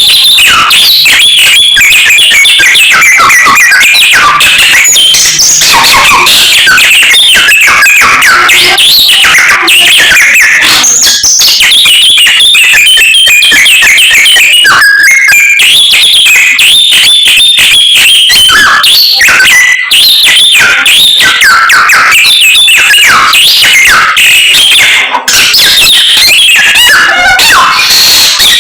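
Samyong songbird singing continuously and vigorously, a rapid unbroken run of varied whistles and trills.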